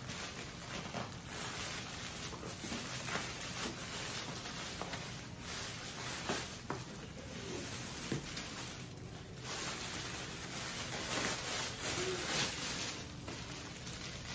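Clear plastic packaging rustling and crinkling as a wrapped garment is handled and lifted out of a cardboard shipping box, with scattered small crackles and taps.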